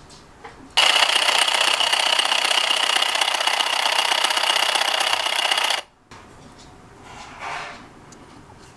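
A recycled 12–18 V printer DC motor driving a 3D-printed plastic reduction gearbox, with a steady whirring whine of motor and meshing gears. It starts about a second in and stops abruptly about five seconds later.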